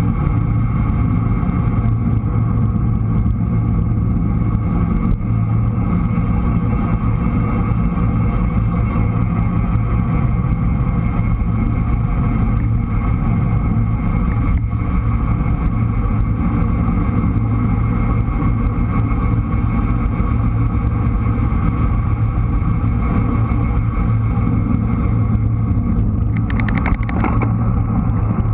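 Steady wind and tyre rumble on the microphone of a bike-mounted camera riding a road bike along asphalt. A brief fast ticking comes in near the end.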